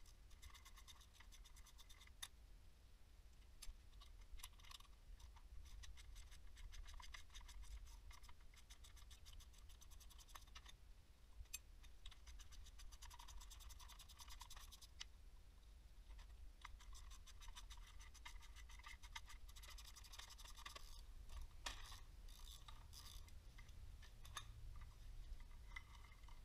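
Faint runs of rapid ratchet clicks, with short pauses between them, from a hand ratchet and socket turning out the 17 mm bolts that hold a flex plate to the crankshaft.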